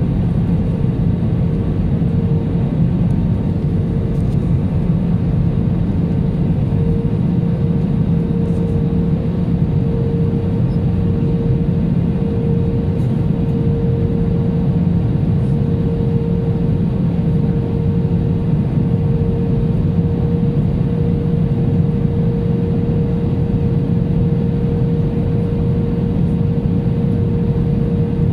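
Cabin noise of an Airbus A320 in descent: a steady rumble of the engines and rushing air, with a steady hum running through it.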